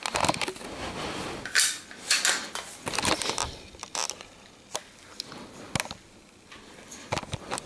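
Walther PPQ M2 pistol being handled: irregular sharp clicks and short rustling scrapes, with no steady sound between them.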